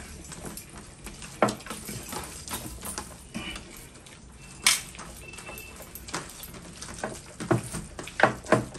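Two men eating rice by hand from steel platters: irregular mouth noises of eating and light clinks and scrapes of hands and rice on the metal plates, with a few sharper ones about a second and a half in, near five seconds and in the last second and a half.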